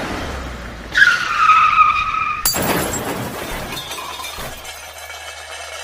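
A car's tyres screech for about a second and a half, then a crash with shattering glass that rings and tinkles on to the end.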